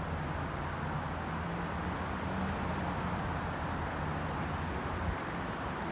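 Low steady drone of a diesel passenger train's engine in the station, over an even wash of traffic noise, with a single faint knock about five seconds in.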